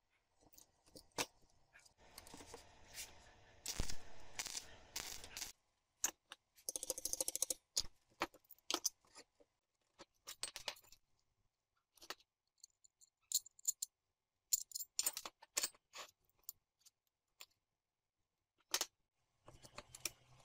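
Small steel parts clicking and clinking against each other and the metal bench top as a piece is fitted into a square steel tube: irregular light taps throughout, with a couple of longer stretches of rubbing noise in the first half.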